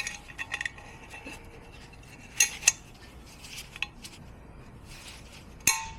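Aftermarket intake pipe being worked into place in a car's engine bay: light rubbing and scattered clicks, with two sharper knocks a little past two seconds and another near the end.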